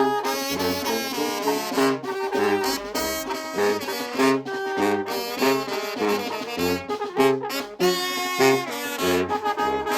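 Live brass band music: trumpets, trombones and saxophones playing a melody in harmony over a bass line that steps from note to note in a steady, bouncing rhythm.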